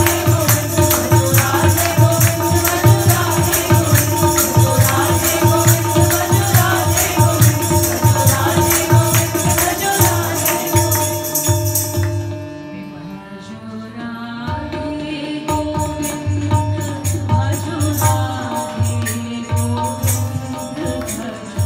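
Group devotional kirtan singing over a low rhythmic drum beat and a steady held tone. A crisp, fast rhythmic beat drops out about twelve seconds in, and the music goes quieter for a moment before the singing and drum carry on more softly.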